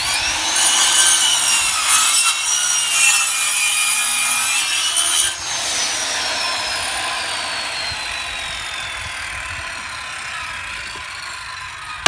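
Circular saw cutting an angle across the end of a piece of siding for about five seconds; then the trigger is released and the blade coasts down with a falling whine.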